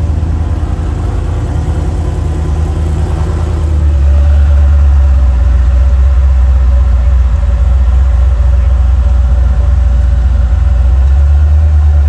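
Off-road Jeep engine idling and crawling at low speed, a steady deep rumble that gets louder about four seconds in.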